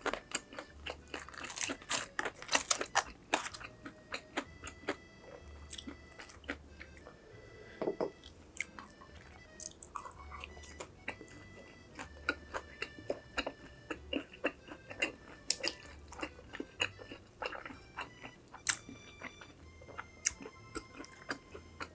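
Close-miked chewing and biting of crunchy food, with a dense run of sharp, irregular crunches and mouth clicks, busiest in the first few seconds.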